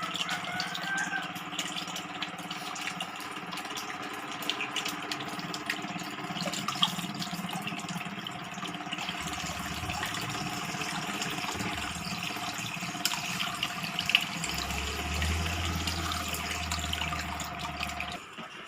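Water running and splashing steadily in an aquarium setup, over a faint steady hum like a small water pump, with scattered small clicks.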